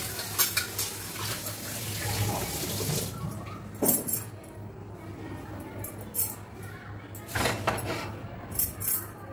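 Tap water running into a steel sink while a black kadai is rinsed; the water stops about three seconds in. Then come several metallic clanks as the pan is handled and set down on the gas stove.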